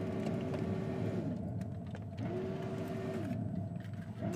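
A small electric motor whirring: it rises to a steady whine, holds for a second or two and winds down, about twice, over a steady low hum.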